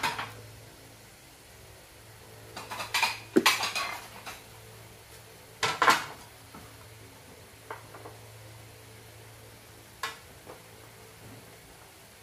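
Dishes and metal utensils clinking and clattering in a few separate bursts, the loudest about three and a half and six seconds in, over a low steady hum.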